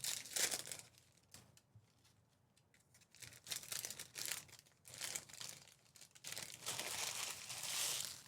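Card pack wrappers being torn open and crinkled, in three bouts. The longest comes near the end.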